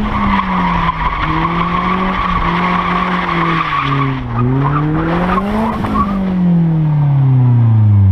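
Car engine revving hard with its tyres squealing as it slides sideways through the bends. The squeal stops about four seconds in, the revs climb and drop again, and they fall away steadily near the end.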